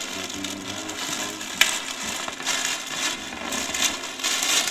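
Rustling and crinkling of gift packaging and a plastic bag being handled as presents are unpacked, with a sharp crackle about one and a half seconds in.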